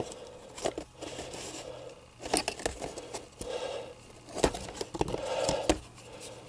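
Hands working a metal hose clamp onto a hose: scattered clicks and scrapes with rustling between them.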